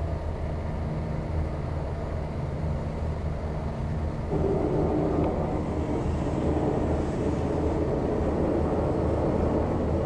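A steady low engine drone. About four seconds in, a louder, rough rumble joins it: the sound of a barge towed by a small tugboat through typhoon waves.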